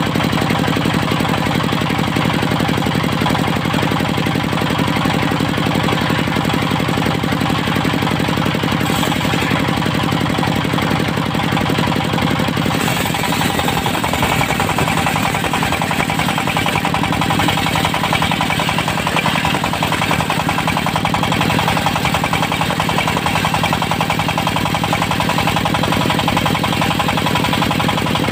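Diesel engine powering a portable circular sawmill, running steadily with a fast, even knock. About halfway through the sound turns brighter and hissier.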